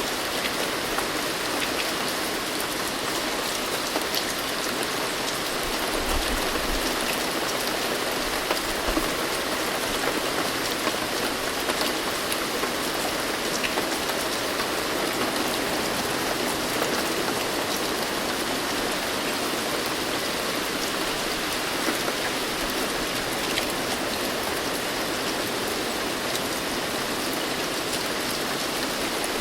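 Steady rain falling, a dense even hiss of drops with faint individual drop ticks.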